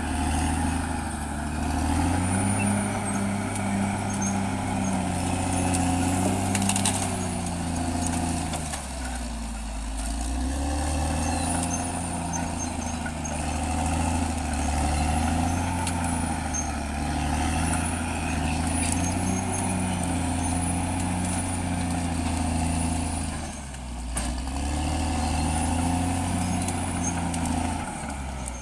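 Caterpillar D6R XL bulldozer's diesel engine working under load, its pitch rising and falling as it pushes and eases off, with a dip about nine seconds in and another near the end. A faint high squeal comes and goes.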